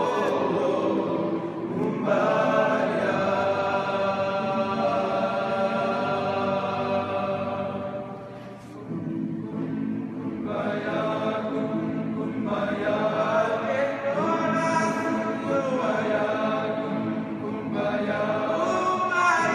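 Men's choir singing a cappella in sustained chords, with a short drop around eight seconds in before the voices come back in together.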